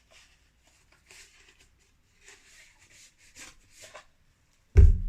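Packaging rustling and crinkling in short, scattered bursts as a parcel is opened and its contents pulled out, then a sudden loud, low thump near the end.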